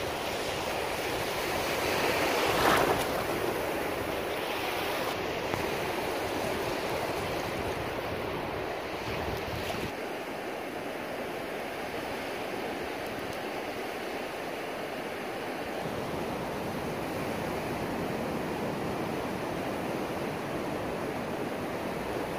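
Surf washing onto a sandy beach, with wind on the microphone: a steady rushing noise that swells louder about two to three seconds in.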